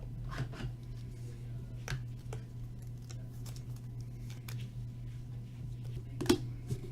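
Trading cards being handled and shuffled through a stack: soft rustles and light clicks, with a sharper click about six seconds in, over a steady low hum.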